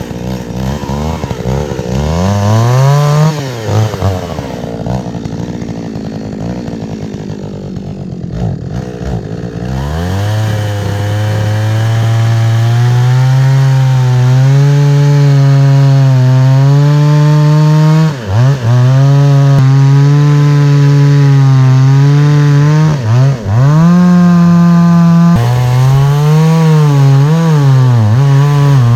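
Chainsaw revving up and falling back, running lighter for several seconds, then held at high speed from about ten seconds in while cutting a log for firewood, its pitch dipping sharply a few times as the chain bites.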